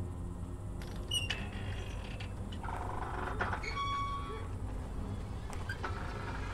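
Metal swing chains creaking in short squeaks as the swing sways, about a second in and again around three to four seconds in, over a low steady rumble.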